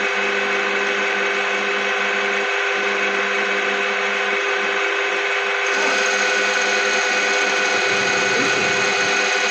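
Metal lathe running with a steady whine of several tones, taking the finishing cut across a piston crown held in a jig.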